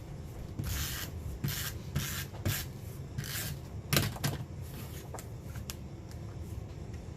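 Paper being worked by hand while a photo is matted: a few short rasping strokes on paper, then a sharp click about four seconds in, followed by a few lighter ticks.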